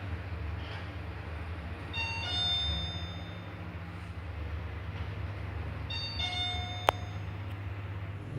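Hyundai elevator arrival chime sounding twice, each a two-note chime, about two seconds in and again about six seconds in, over a low steady hum; a sharp click just before the seventh second.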